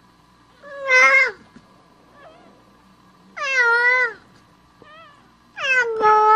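Mother cat in labour meowing three times, each call about a second long and loud.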